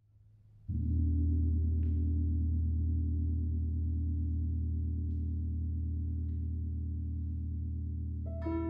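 A large Chinese chau gong struck about a second in, ringing on in a deep, slowly fading hum. A clearer, higher note comes in near the end.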